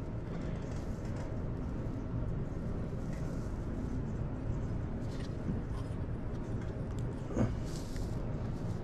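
Steady low background hum, with a few faint clicks and rustles from hands working a lantern mantle and its small metal clip. One slightly louder click comes about seven seconds in.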